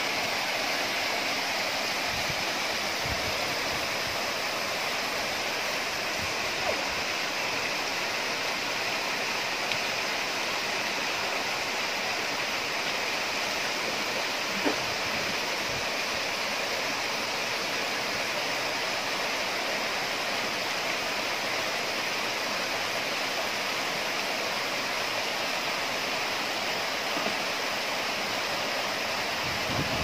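Small rocky jungle stream rushing and splashing steadily over stones in little cascades, with a couple of faint knocks.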